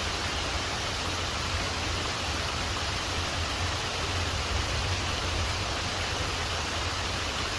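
Waterfall rushing steadily: an even wash of falling water with a deep low rumble underneath.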